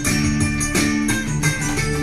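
Background music: plucked guitar with a steady rhythm.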